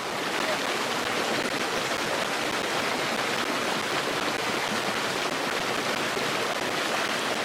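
Mountain stream rushing steadily over rocks, a continuous even wash of water noise.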